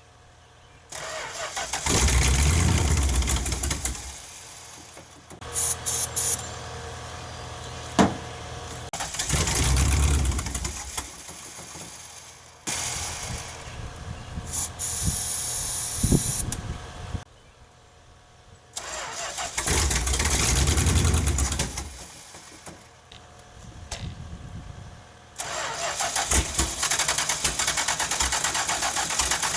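A 1969 Chrysler Newport's 383 V8 being cranked over in three separate attempts, with short hissing bursts between them. About 25 seconds in it catches and keeps running. The owner says the engine runs, though not well, and needs a carburettor job.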